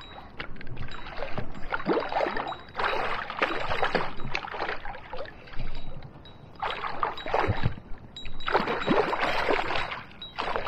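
Water splashing in several irregular spells as a hooked pike thrashes near the surface while it is played on the rod.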